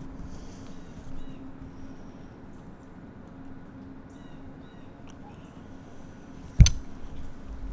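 Quiet morning outdoors with faint bird chirps, broken by one sharp knock about six and a half seconds in.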